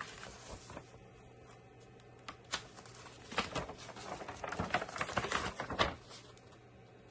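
Hands handling small objects: a run of light clicks, taps and rustles, sparse at first and thickest from about three to six seconds in, then stopping.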